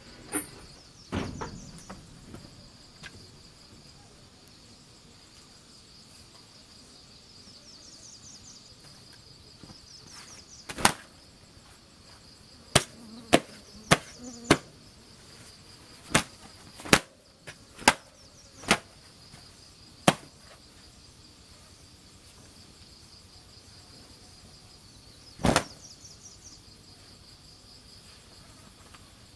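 A steady chorus of field insects, crickets or similar, with a string of sharp knocks about a dozen times, most of them bunched in the middle and one more later.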